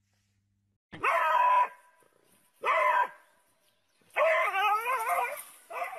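A dog yelping and crying out in four high, wavering cries about a second apart, the first starting about a second in and the third the longest.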